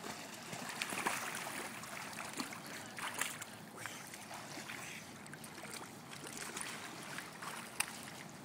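Pool water splashing and sloshing irregularly under a small child's swimming strokes, with a few sharper splashes.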